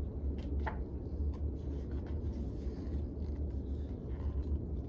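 Steady low room hum with a few faint paper rustles and light clicks as a hardback picture book's page is turned and the book is held up.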